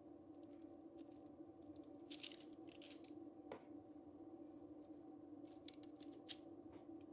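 Near silence: a steady faint hum with scattered faint crinkles and ticks as a floured tea glass is pressed into cookie dough balls on parchment-lined baking paper.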